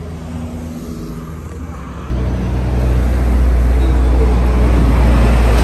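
A motor vehicle's engine running close by with a steady low hum, which suddenly gets much louder about two seconds in and stays at a loud, steady rumble.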